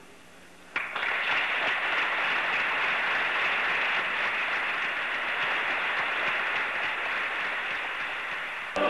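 Congregation applauding in a church, breaking out suddenly about a second in and carrying on steadily, easing off a little near the end.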